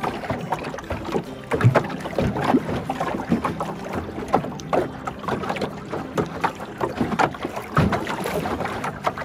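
Lake water lapping and slapping irregularly against the hull of a small wooden boat as it moves through wind-rippled water, several slaps a second, with some wind noise.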